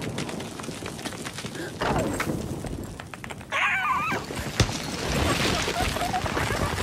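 Cartoon sound effects: a cartoon bird's short squawking call with a wavering pitch about three and a half seconds in, among scattered knocks and clatter, with one sharp knock just after the call.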